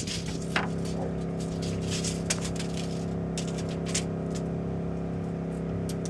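A motor starts up at the very beginning and runs at a steady, unchanging pitch, with scattered light taps and knocks over it.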